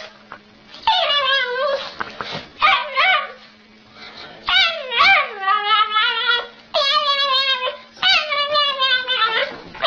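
A dog whining and yowling in about six drawn-out, high-pitched calls, each sliding down in pitch, with short pauses between them.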